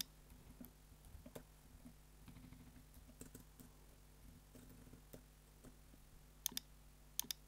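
Faint computer keyboard typing: scattered soft key clicks, with a few sharper clicks near the end.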